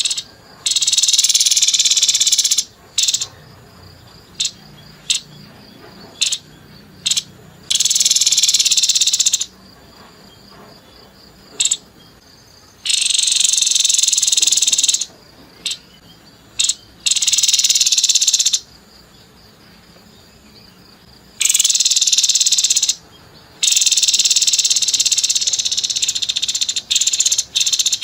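Grey-headed babbler giving harsh, rapid high-pitched trills in bursts of one to four seconds, six or so in all, with short sharp single notes in the gaps between them.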